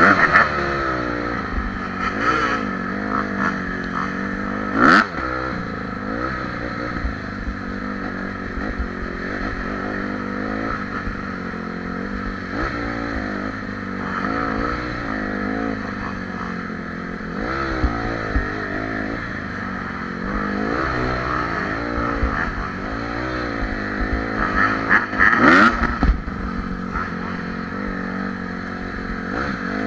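Honda CRF150R dirt bike's single-cylinder four-stroke engine riding along, revving up and down again and again with the throttle. Sharp knocks sound around five seconds in and again near twenty-five seconds.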